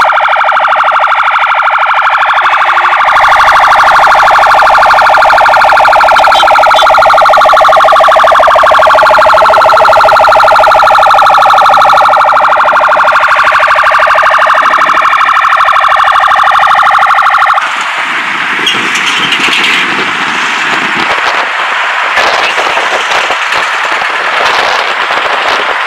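Police vehicle sirens sounding, several loud tones overlapping and slowly shifting in pitch. They cut off suddenly about two-thirds of the way in, leaving a steady rushing noise.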